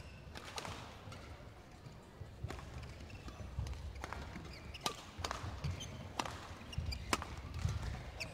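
Badminton rally: sharp racket strikes on the shuttlecock, about seven in all at roughly one a second, over low thuds of players' feet on the court.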